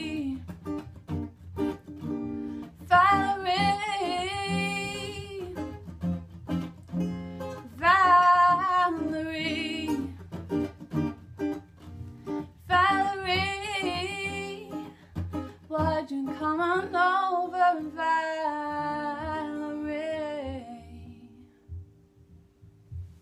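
A woman singing with acoustic guitar accompaniment, in four long drawn-out phrases. The song ends on a held chord that dies away a little over twenty seconds in.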